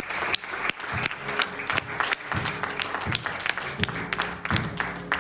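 A congregation clapping, with many sharp claps throughout, over instrumental church music with steady low held notes.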